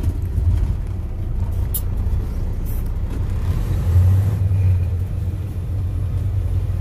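Diesel engine of a Class A semi truck running steadily while driving, heard inside the cab as a low drone that swells briefly about four seconds in.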